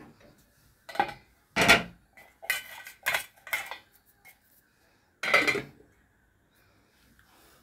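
Metal cookware on a gas stove: several sharp clinks and knocks, then a louder clank as a stainless steel lid is set down on a frying pan about five seconds in.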